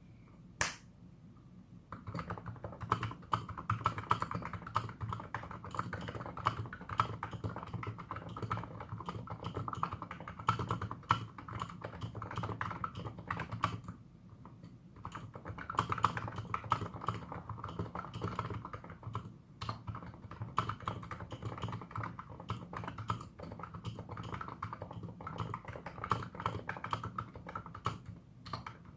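Plum Nano 75 keyboard with electrostatic capacitive switches and Filco double-shot keycaps, typed on quickly and continuously after a single key click near the start, with a brief lull about halfway.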